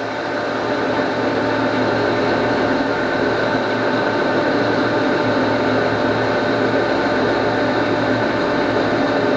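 Blanchard No. 20-36 vertical rotary surface grinder running, its wheel spindle and magnetic chuck turning while the wheel head is run down on rapid traverse. A steady machine hum with several fixed tones, rising in level over the first second, then holding.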